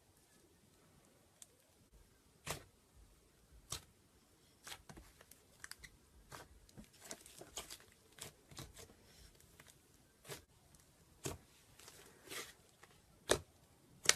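Slime being squeezed and stretched by hand, giving irregular little pops and crackles, a few of them louder.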